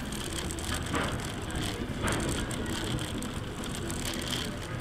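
A three-wheeled cycle rolling steadily over cobblestones: the wheels and frame rattle and rumble continuously.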